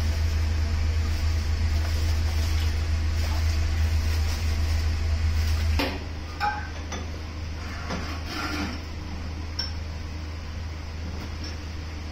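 Working restaurant kitchen noise: a steady low hum cuts off suddenly about six seconds in. After that, dishes, utensils and pans clink and knock now and then over a steady background.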